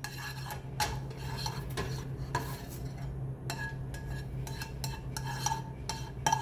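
A kitchen utensil clinking and scraping against cookware, a string of small sharp knocks a few times a second, over a steady low hum.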